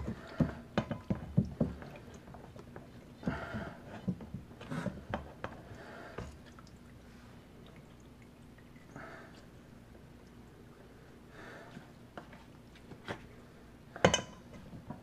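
Chicken bone broth dripping and trickling from a colander of pressed roast chicken bones into a stainless steel bowl. A wooden spoon pressing the bones makes scattered clicks and knocks in the first couple of seconds, and there is one sharp knock near the end.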